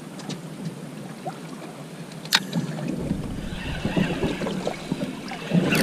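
Sea water slapping against a small boat's hull, with wind on the microphone. A single sharp click comes about two seconds in. From about three seconds the low rumble of wind and water grows louder.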